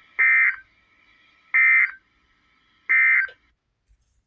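Emergency Alert System end-of-message signal: three short bursts of digital data tones, a little over a second apart, closing out the tornado warning broadcast.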